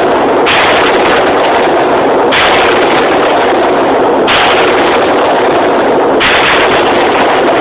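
AR-15 rifle shots fired at a steady pace, four in all, about two seconds apart. The recording is so loud it is overloaded, and each shot runs into the echo of the last.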